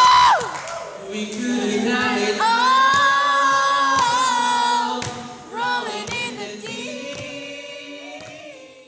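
A young man singing solo into a microphone, with long held notes that waver in pitch. The sound fades out near the end.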